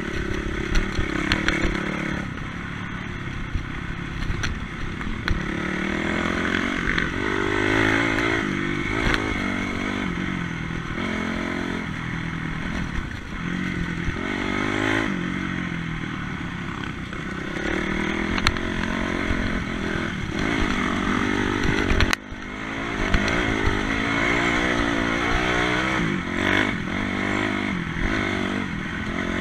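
Trail bike engine revving up and down as it is ridden over a rough gravel track, with clatter and knocks from the bike over the bumps and one sharp knock about three-quarters of the way in.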